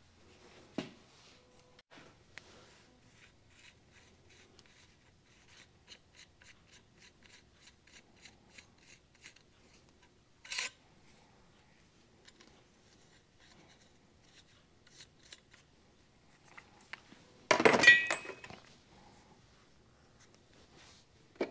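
Light metal handling of a piston-pin puller and the wrist pin: a run of soft, even ticks, about three a second, as its threaded rod is worked. Then a single clink about ten and a half seconds in, and a louder clatter of metal parts a few seconds before the end.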